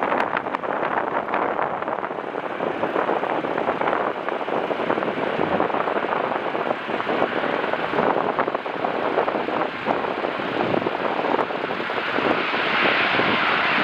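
Strong gusting wind buffeting the microphone over the rushing engine noise of a jet airliner coming in to land, with a higher rushing sound growing louder near the end.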